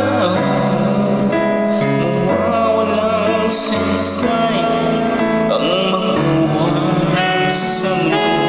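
A male voice singing a ballad over a backing track of keyboards and band instruments, played loud and steady.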